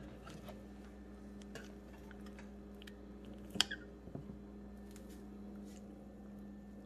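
Faint clicks and scrapes of a metal spoon scooping bread pudding from a ceramic bowl, the sharpest click about three and a half seconds in, over a steady low hum.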